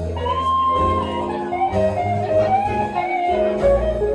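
Slow blues played live by a band: a lead guitar line of long held notes with slow bends, over a bass line.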